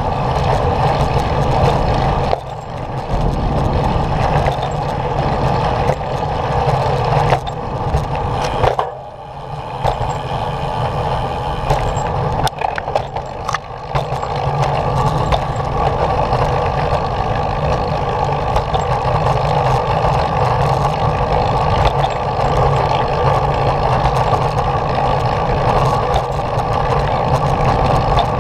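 Steady rolling noise of a small vehicle riding along a smooth paved path, briefly quieter about nine seconds in, with a few sharp clicks a little later.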